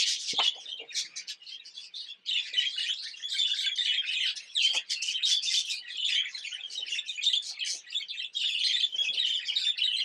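A flock of budgerigars chirping and chattering continuously, many rapid overlapping high chirps.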